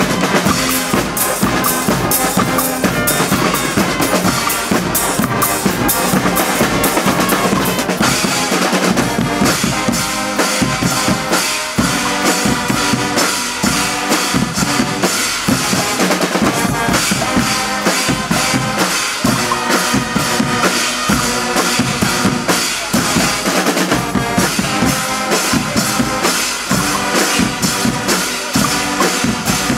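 Guggenmusik carnival band playing loudly: massed brass (trumpets, trombones and sousaphones) over a steady beat of bass drum, snare and cymbals.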